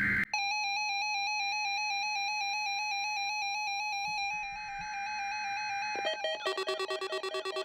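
Weather radio receiver sounding its electronic alert for a NOAA Weather Radio Required Weekly Test: a steady alarm tone starts just after a SAME data burst, with two more data bursts buzzing faintly beneath it. About six seconds in it changes to a fast pulsing beep of several tones, about five a second.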